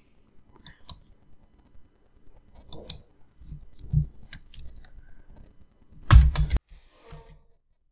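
Sparse clicks of a computer mouse and keyboard keys, with a louder clatter of keys about six seconds in.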